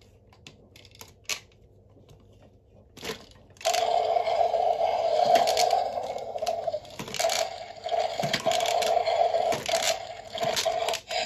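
A few light plastic clicks as a Strike 'N Roar Giganotasaurus toy is handled. About four seconds in, the toy's electronic roar sound starts from its small built-in speaker and runs on with brief breaks, over clicks of the plastic body being worked.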